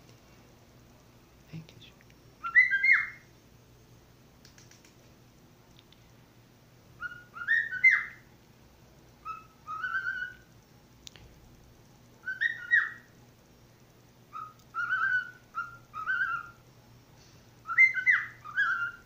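A person's short, rising whistles, given as come-here calls to a cat. They come singly or two or three together, about a dozen in all, every second or two.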